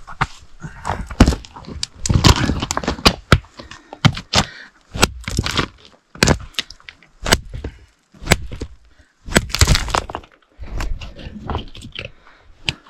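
Rock hammer striking a large boulder of Zaria stone (rhodonite, garnet and jasper) again and again, about one sharp crack a second, to break a piece off it.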